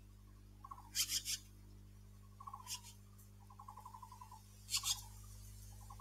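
Taiwan blue magpie giving harsh, rasping alarm calls at a snake on the ground. Three loud screechy calls, about a second in, near three seconds and near five seconds, come between lower buzzy rattling chatter, with a longer rattle in the middle.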